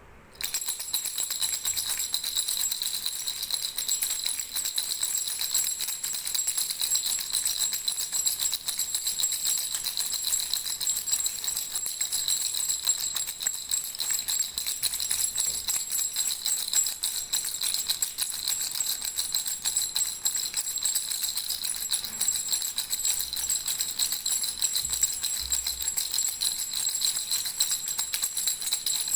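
Baby rattle shaken continuously: a fast, unbroken jingling with a bright, high ringing, starting about half a second in.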